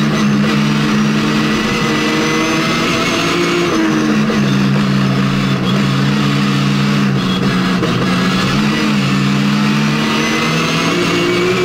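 BMW E30's S50 straight-six rally engine heard from inside the cockpit, pulling hard in fourth gear. Its note dips briefly about four seconds in, then climbs steadily as the revs build.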